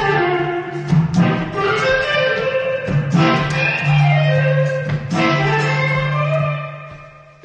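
Electric guitar being played: chords and single-note lines struck about once a second, with sliding notes over a held low note that fades out near the end.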